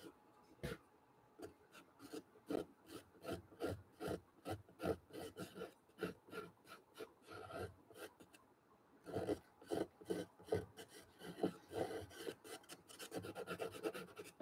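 Pastel pencil scratching on gesso-coated cold-press watercolour paper in short, quick back-and-forth strokes, a few a second. The strokes come faster near the end.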